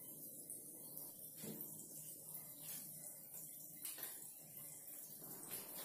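A steel fork pricking boiled baby potatoes in a bowl: a few faint soft clicks over a low steady background hum.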